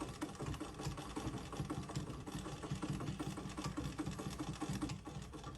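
Sewing machine running, its needle stitching in a fast, even rattle.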